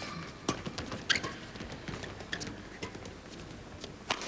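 A fast badminton doubles rally: racket strings striking the shuttlecock in a run of sharp cracks a fraction of a second to a second apart, with players' shoes squeaking and patting on the court between shots.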